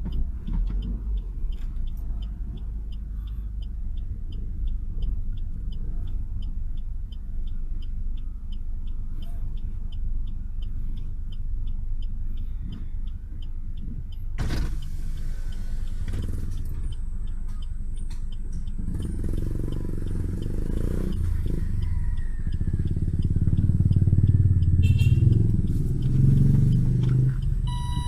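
Car engine and road rumble inside a moving car, with faint regular ticking in the first half. About halfway a hiss comes in suddenly, and the engine grows louder in the last third.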